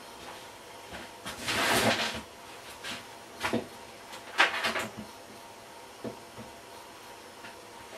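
Things being handled and set down on a workbench: a scraping rustle about a second and a half in, then a few sharp knocks and clatters.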